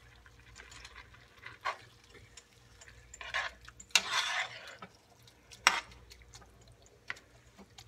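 A spoon stirring a thick ground beef and crushed tomato mixture in a skillet: scattered scrapes and taps of the spoon against the pan, with sharp clacks about four seconds in and again near six seconds.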